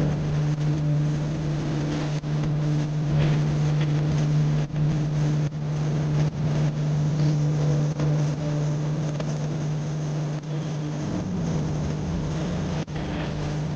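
Car driving, heard from inside the cabin: a steady engine and road hum under tyre noise, its pitch shifting slightly near the end.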